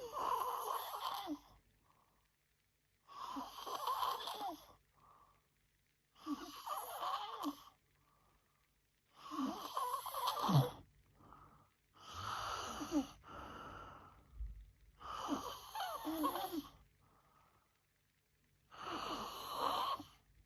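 A woman snoring in her sleep: seven raspy, wheezy breaths, one about every three seconds, some followed by a short softer breath.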